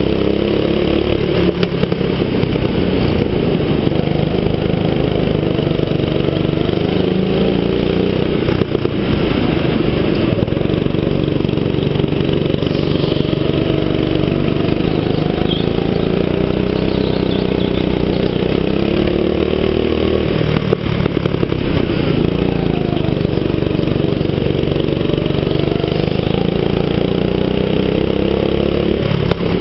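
Go-kart engine running at racing speed, heard from on board, its pitch rising and falling over and over as the kart lifts off and accelerates through the corners.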